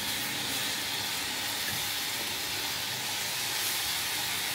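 Fresh drumstick (moringa) leaves dry-roasting in a hot iron kadai, giving a steady hiss as their moisture steams off.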